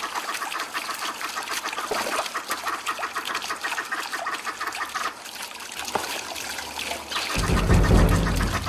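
Water trickling and splashing in a fountain basin. Music comes in near the end.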